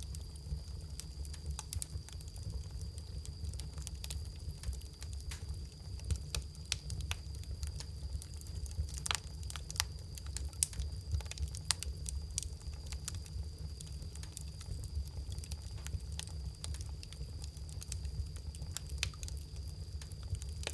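Bonfire crackling, with frequent irregular sharp pops and snaps over a steady low rumble.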